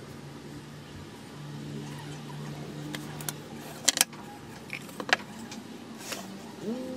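Plywood pieces knocked against a wooden workbench as they are set in place: a few sharp taps about four and five seconds in. Behind them is a steady low hum that stops about three and a half seconds in, and a rising-and-falling engine-like note near the end.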